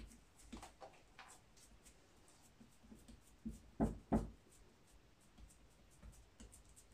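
Metal spoon scraping and tapping against a glass baking dish as thick besan barfi mixture is spread and smoothed out; soft scattered scrapes, with two louder knocks close together about four seconds in.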